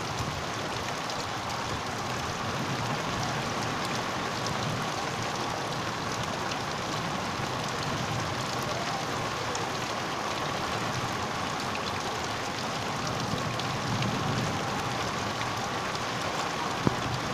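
Heavy rain falling steadily, a continuous even hiss of downpour on ground and puddles. A single sharp tap near the end.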